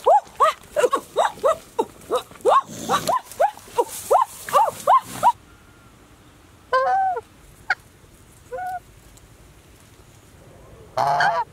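Domestic geese honking: a rapid run of loud, repeated calls for about five seconds, then a few short scattered calls after a pause.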